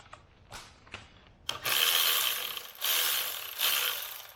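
Ratchet wrench clicking as it spins a loosened 12 mm alternator bracket bolt out: a few single clicks, then three long runs of rapid clicking from about a second and a half in.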